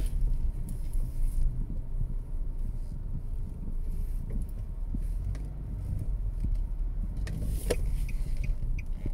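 Low, steady rumble of a car's engine and tyres heard from inside the cabin while driving slowly, with a single sharp click about three-quarters of the way through.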